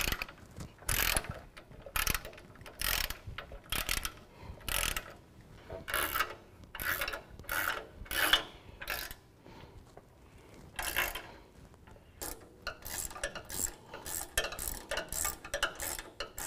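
Ratchet wrench turning an 18 mm socket to tighten bolts, a run of pawl clicks on each back-swing at about one stroke a second. It pauses briefly a little past the middle, then gives a faster, quicker string of clicks near the end.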